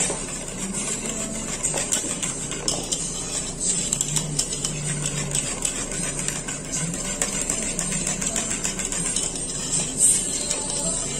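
Wire whisk beating thickened custard in an aluminium saucepan: fast, continuous clicking and scraping of the wires against the pan, over a low hum.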